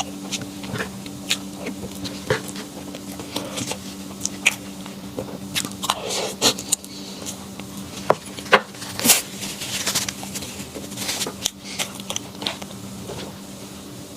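Close-up eating sounds: irregular crunches and clicks of someone biting and chewing food, over a steady low hum.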